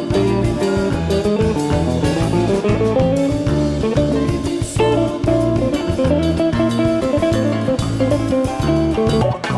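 Live rock band recording: electric guitar playing melodic lines over bass guitar and a drum kit in a jam. The passage cuts off right at the end.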